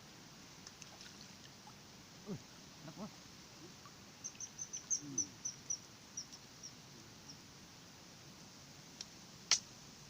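A bird calling outdoors: a run of about fifteen short, high chirps that slow toward the end, with a few lower calls before it and a single sharp click near the end.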